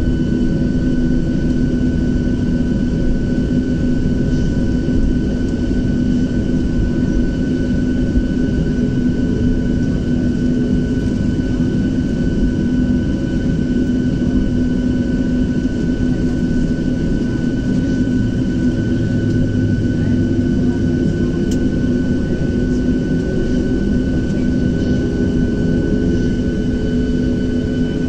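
Inside the cabin of a Boeing 737-700 taxiing after landing: the CFM56-7B engines running near idle give a steady hum and whine with several constant tones over a low rumble.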